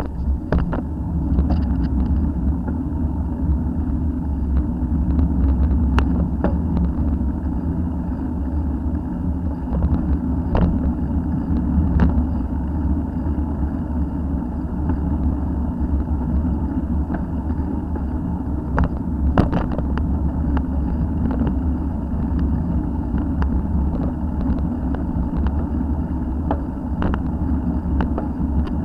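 Steady low rumble of wind and road vibration on a bicycle-mounted camera as the bike rolls along a tarmac street, with scattered sharp clicks and rattles.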